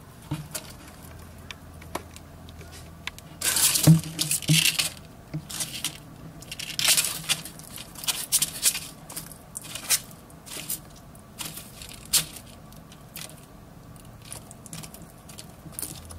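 Bearded dragon seizing and swallowing a pinky rat on cardboard: irregular clicks and short scraping bursts from its jaws working the prey and its claws on the cardboard, loudest around four and seven seconds in.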